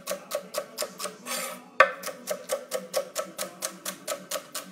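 Chef's knife rapidly chopping celery on a wooden cutting board: even knife knocks about five a second, with one harder knock a little under two seconds in.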